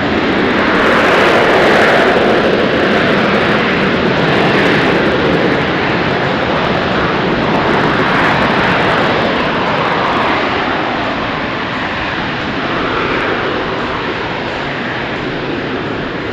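AV-8B Harrier II's Rolls-Royce Pegasus vectored-thrust turbofan running loud during slow, nose-high flight with the gear down. The jet noise has a whooshing sweep that rises and falls. It is loudest about two seconds in and eases off toward the end.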